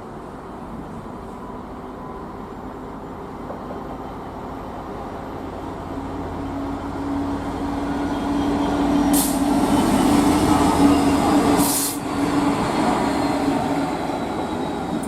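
Train approaching and passing at speed, growing louder to a peak about two-thirds of the way through, with a steady hum and two brief loud rushes of noise near the peak.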